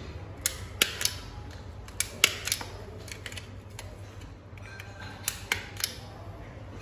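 Impact punch-down tool snapping as it seats network cable wires into the slots of a keystone jack on a wall plate: nine sharp clicks in three quick groups of three.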